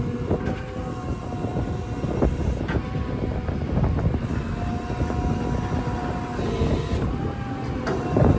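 Service truck machinery running: a steady mechanical whine with several held tones over a low rumble, with a few light knocks.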